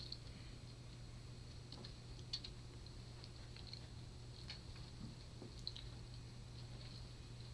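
Faint, scattered light clicks and ticks of young kittens playing and wrestling on carpet and a plush cat bed, over a steady low hum.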